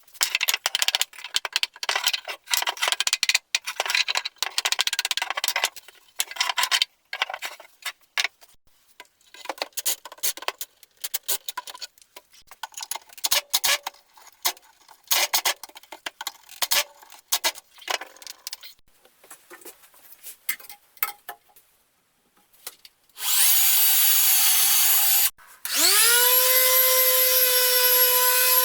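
A hand tool rasping or sawing on wood in irregular strokes for about twenty seconds. Then a power tool's motor runs briefly and stops, starts again with a rising whine, and settles into a steady high-pitched run.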